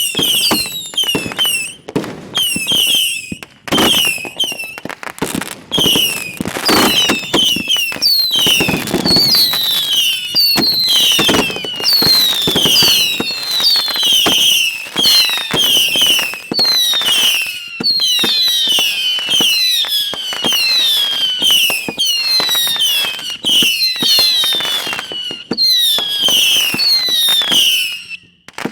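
Fireworks going off in rapid succession at close range: dense bangs and crackling with many overlapping high whistles, each falling in pitch. The barrage dips briefly near the end.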